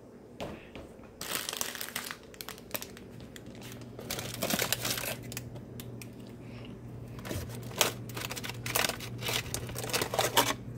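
Plastic food wrappers crinkling and rustling in irregular bursts as hands rummage through packages in a refrigerator, with a low steady hum starting about four seconds in.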